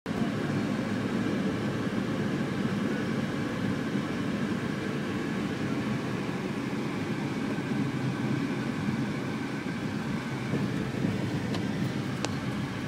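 Steady engine and tyre noise of a car driving along, heard from inside the cabin, with a couple of faint ticks near the end.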